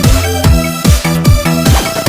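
Electronic dance music with a steady kick drum, about two beats a second, under sustained synth tones.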